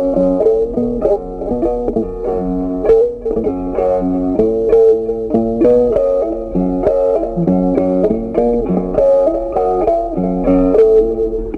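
Background music: a plucked-string tune, note after note.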